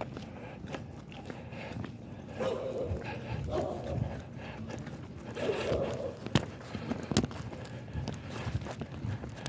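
A dog barking three times over a few seconds, with footsteps and a couple of sharp clicks.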